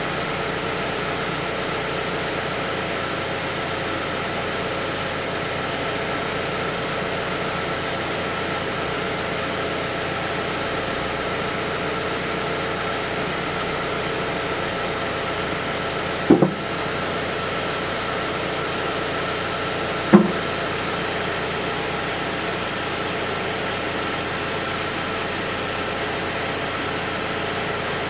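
Toyota Camry XV50's 2.5-litre four-cylinder engine idling steadily, kept running so the automatic transmission's fluid level can be set by topping up until fluid runs out of the level tube. Two sharp knocks about four seconds apart near the middle are the loudest sounds.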